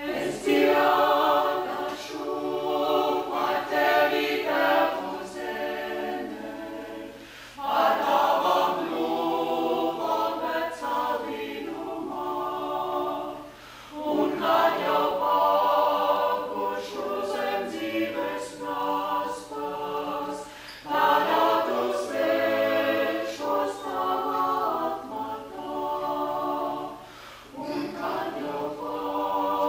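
Small mixed vocal ensemble of women and men singing a cappella, in long phrases with short breaks between them about every six to seven seconds.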